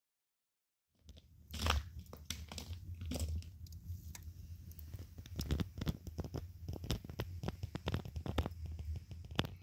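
Campfire of dry twigs and sticks crackling, with frequent sharp pops over a low steady rumble; it starts about a second in.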